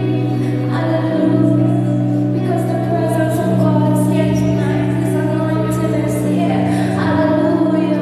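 Gospel worship music: singing over steady held chords, with light high strokes of percussion.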